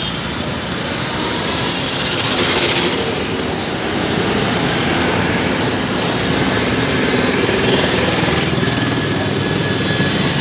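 City road traffic: the small engines of passing auto-rickshaws and motorcycles running close by over a steady traffic rumble.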